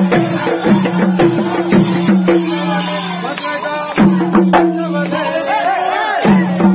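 Kerala folk music (maramkottipaattu): drums strike a fast beat of sharp strokes, about three a second, with a jingling rattle over a held low tone. Voices waver above it, rising and falling in pitch more strongly toward the end.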